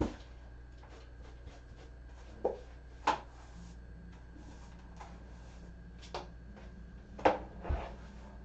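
Several short sharp knocks and clatters of household objects being handled, spaced irregularly, over a steady low hum.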